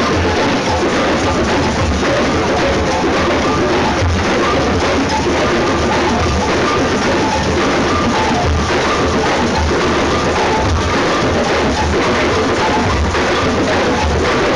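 Drum-driven music with a steady, fast beat of low drum thumps and sharper hand-drum strokes.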